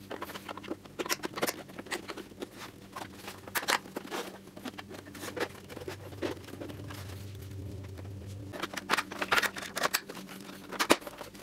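Hard plastic clicking and rattling as a painted towing-mirror cap is handled and pressed onto the mirror housing, with a few louder clicks near the end.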